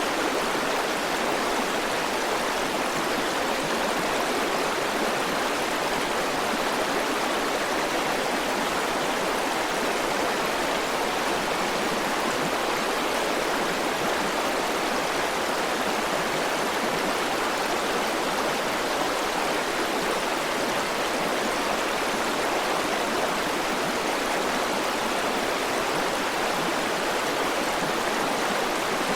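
River water rushing and splashing over rocks: a steady, unbroken rush with no pauses or changes.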